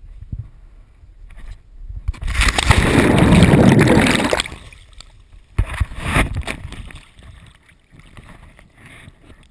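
A person on a rope swing plunges into a river with the camera: a loud rush of splash and bubbling water builds about two seconds in and lasts about two seconds, muffled while the camera is underwater. Sharp splashes and sloshing follow as the swimmer surfaces.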